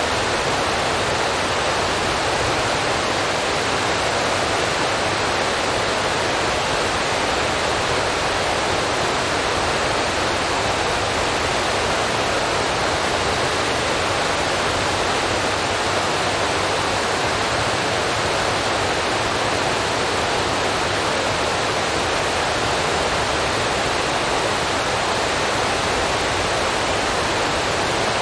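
A steady, unchanging rushing hiss.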